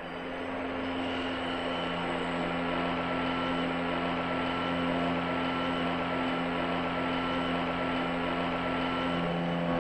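Steady whirring drone of spinning helicopter rotors over a hissing rush, growing louder over the first second and then holding steady: the sound effect for the animated Ingenuity Mars helicopter's coaxial rotors spinning up for take-off.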